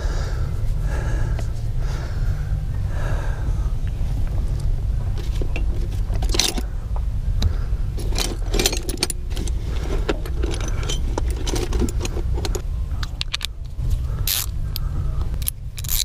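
Metal hand tools clinking and scraping as they are dug out of a canvas tool bag and put to a seat-belt anchor bolt, with many irregular sharp clinks through the second half, over a steady low rumble.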